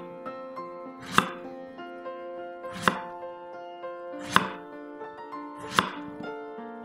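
Chef's knife cutting through peeled eggplant and knocking on a wooden cutting board: four cuts about a second and a half apart, over background music.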